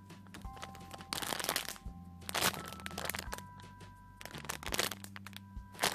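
Plastic packaging crinkling in irregular bursts as a squishy toy sealed in its bag is squeezed and handled, with three louder rustles about a second in, midway and near the end.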